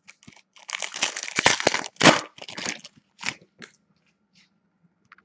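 Foil trading-card pack wrapper being torn open and crinkled: a dense run of crackling for about a second, the loudest rip near the middle, then a few shorter crinkles as the wrapper is pulled off the cards.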